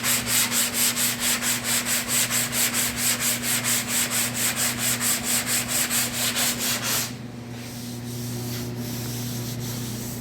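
Rapid back-and-forth hand sanding strokes on a steel quarter panel, about four strokes a second, stopping about seven seconds in. A steady low hum runs underneath.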